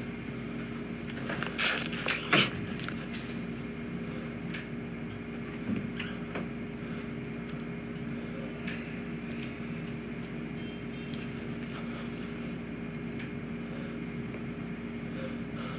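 Steady low room hum, with a quick cluster of sharp knocks and clatters about two seconds in and faint scattered ticks after that.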